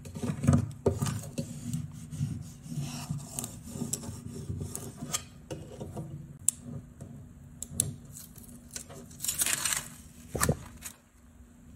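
Plastic scraper tool rubbing over transfer tape laid on stencil vinyl: a run of quick, irregular scraping strokes that press the tape onto the cut design. The strokes thin out to a few light ticks, and near the end there is a louder rustle and a knock as the plastic sheet is handled.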